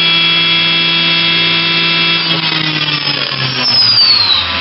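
Makino A81 horizontal machining center's spindle running at 10,000 rpm with a steady whine of several tones, then slowing from about two seconds in, the whine falling in pitch as it winds down toward 5,000 rpm.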